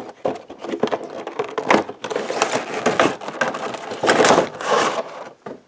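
Clear plastic packaging insert being slid out of a cardboard box by hand: irregular crinkling, clicking and scraping of plastic against card, loudest about four seconds in.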